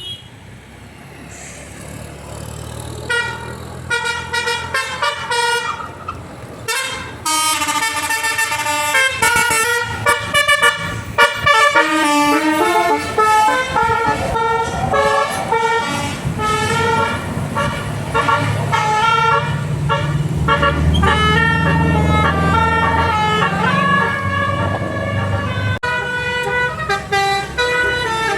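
A bus's telolet horn, the multi-tone musical air horn fitted to a Basuri bus, playing quick tunes of changing notes from about three seconds in. The bus engine rumbles underneath.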